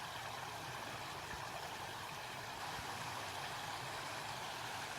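Steady rushing of a clear stream running over stones.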